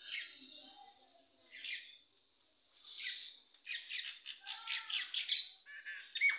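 Small birds chirping: a few separate chirps, then a quick run of chirps in the second half.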